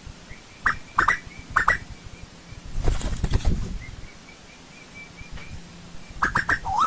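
Asian koel calling: a few sharp, falling notes about a second in, a short burst of noise around three seconds, then the rapid run of repeated up-and-down call notes starting again near the end.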